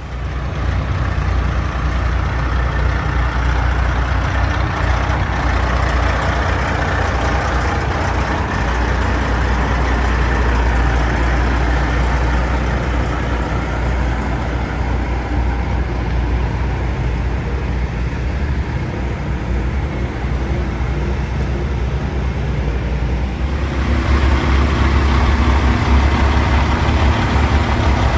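Heavy truck diesel engines running close by: a steady low rumble under a noisy mid-range. About four seconds before the end the sound changes to a louder, steadier low idle.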